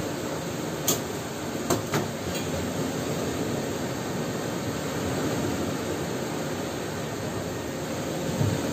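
Steady rushing background noise, with three short metallic clinks in the first two seconds as welded steel parts are handled.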